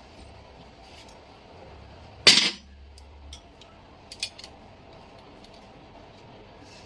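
A single loud, sharp metal clank about two seconds in, as of a tool or engine part struck or set down, followed by a few light clicks and taps.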